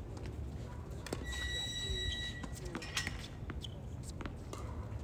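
A tennis ball bounced on a hard court and footsteps as a player readies a serve: scattered short sharp taps over a low outdoor rumble. About a second in, a thin high tone sounds for about a second.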